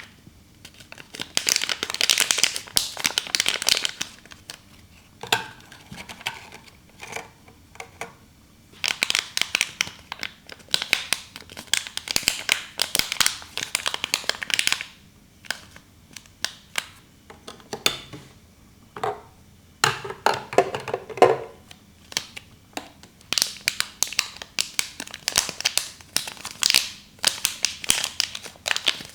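Plastic packaging crinkling in repeated bursts of a second or two, with quieter gaps between.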